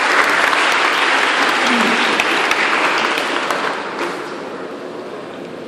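Audience applauding, the clapping thinning out and fading about four seconds in.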